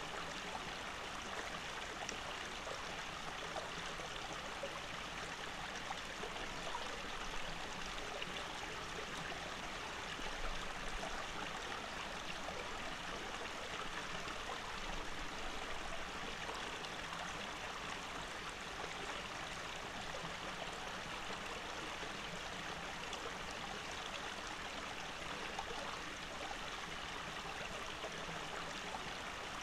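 Small shallow stream flowing and trickling over rocks: a steady, even rush of water.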